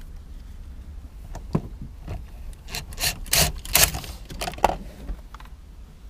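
Scraping and clacking of hand tools being handled, a cluster of short scrapes and knocks between about three and five seconds in.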